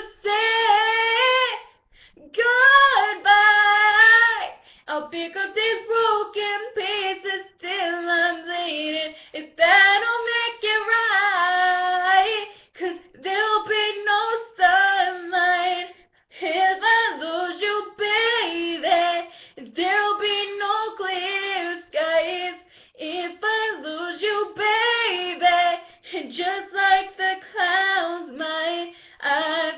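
A young female voice singing a slow pop ballad in sustained, wavering phrases with short breaths between them.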